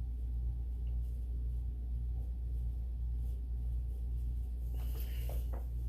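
A steady low hum over quiet room tone, with a few soft rustles near the end.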